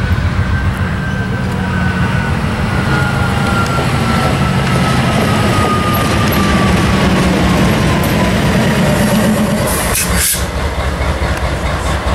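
Union Pacific wide-cab diesel locomotive no. 1848 passing close by under power: a heavy, continuous engine rumble with a faint whine that falls slowly in pitch as it goes by, and a short hiss about ten seconds in.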